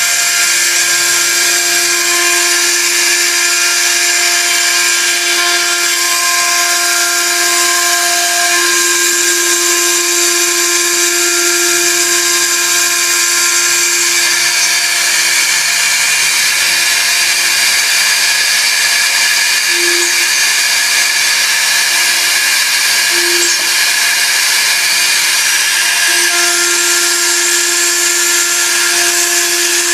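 A high-speed machine running steadily: a loud hiss with a whine of several steady tones that fade through the middle and return near the end.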